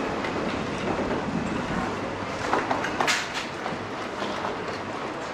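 Steady traffic rumble, with a few sharp clatters about two and a half to three seconds in.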